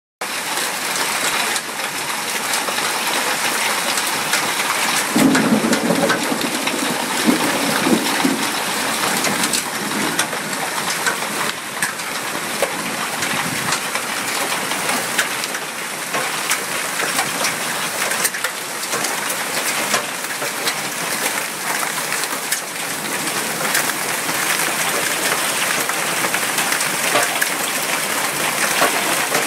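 Severe hail mixed with heavy rain pelting down on a lawn and a stone patio: a dense, steady hiss of rain with countless sharp ticks of hailstones striking. The stones are penny- to quarter-sized, with a few near golf-ball size. About five seconds in, a deeper swell of sound lasts for a few seconds.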